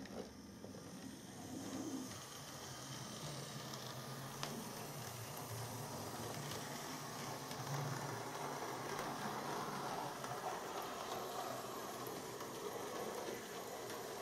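Small electric model railway tank locomotive running up an incline on its track: a soft, steady motor whirr and wheel hum that grows louder over the first couple of seconds and then holds even.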